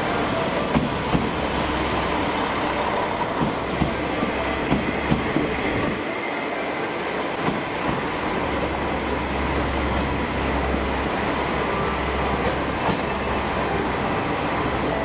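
JR West KiHa 47 diesel railcar running past close by, its diesel engine droning, with wheels clicking in pairs over rail joints through the first few seconds. The engine drone dips briefly about halfway through and then comes back strong.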